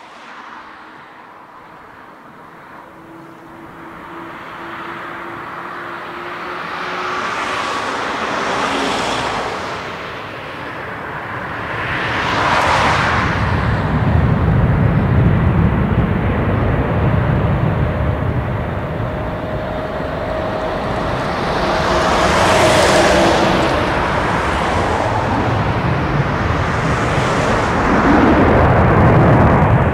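Airbus A330-300's two GE CF6-80E1 turbofans at takeoff thrust during the takeoff roll: a loud jet roar that grows louder as the airliner accelerates toward the runway end, with a hum underneath that climbs in pitch and deep rumble building in the second half.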